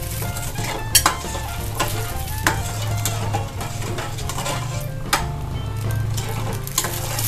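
Metal ladle stirring chocolate milk and chocolate agar powder in a stainless steel pan, scraping and swishing through the liquid. A few sharper clinks come as the ladle knocks the pan, about one, two and a half, five and seven seconds in.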